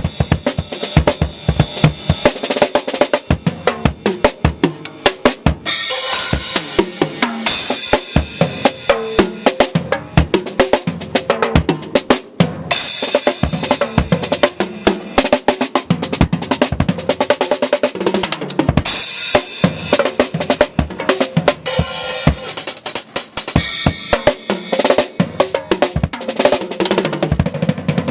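Acoustic drum kit played outdoors in a fast, busy groove: kick drum, snare hits and rimshots under a steady wash of cymbals.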